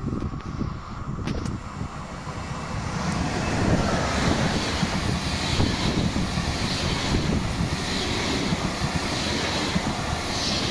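Double-deck Intercity 2 train passing close alongside a station platform: a steady rush of wheels on rail and moving air that swells from about two seconds in, with a high hiss that pulses roughly once a second as the cars go by.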